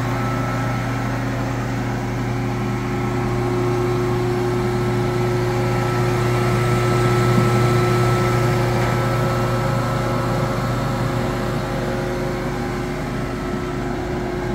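Hollymatic 4000 mixer grinder running at low speed in mix-grind mode: the electric motors and gearbox turn the auger with a steady hum, the motor gearbox running nice and quiet.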